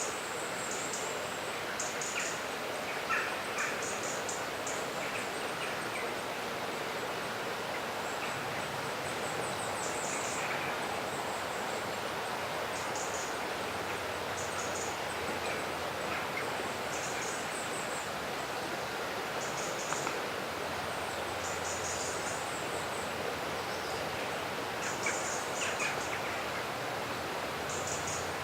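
River water flowing steadily, with small birds giving short, high chirps every second or few over it.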